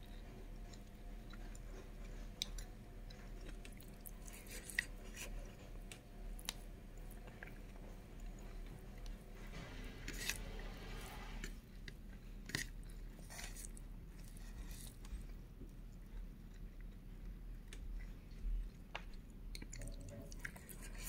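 Close-miked chewing of rice and curry eaten by hand, with scattered small wet clicks and squishes.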